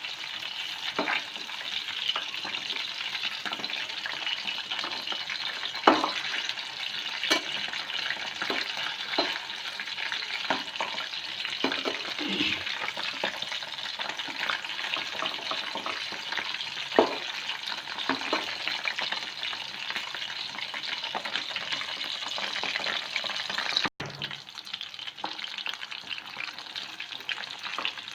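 Spice-coated fish pieces frying in hot oil in a pan, a steady sizzle with popping crackles and occasional knocks of a utensil turning the pieces; the sizzle dips a little after a short break near the end.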